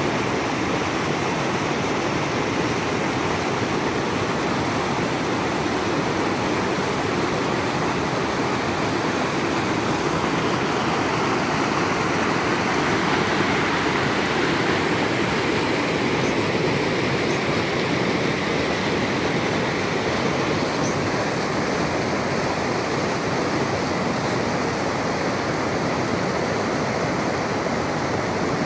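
Rocky mountain stream rushing over boulders in small white-water cascades, a steady, unbroken rush of water.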